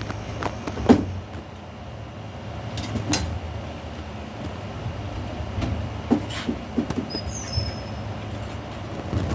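Scattered knocks and clicks from hand work on the metal strap and its fastenings, over a steady low hum. A bird chirps a few times near the end.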